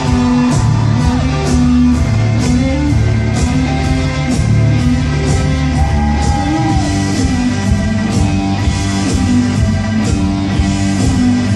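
Live rock band playing a heavy, loud bass and guitar riff over drums, with cymbal hits about twice a second.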